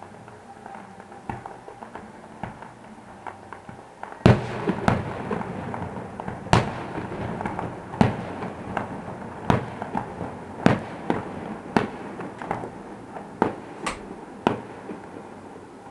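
Aerial fireworks shells bursting at a distance: faint crackling at first, then from about four seconds in a run of about a dozen sharp bangs, roughly one a second, the first the loudest.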